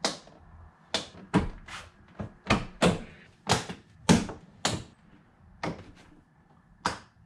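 Plastic door trim panel being pressed onto a Toyota Tacoma Access Cab door, its retaining clips snapping into their holes in the metal door: about a dozen sharp plastic clicks and knocks at uneven intervals, most in the first five seconds.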